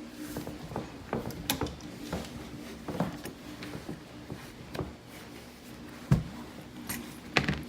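Scattered light clicks, taps and knocks of handling, with a sharper knock about six seconds in and two more near the end, over a steady low hum.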